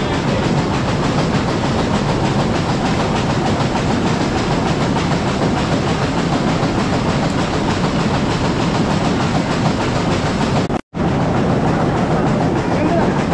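Rotating drum carrot washer running: a loud, steady rumble and clatter of carrots tumbling inside the turning drum. The sound cuts out for an instant about eleven seconds in.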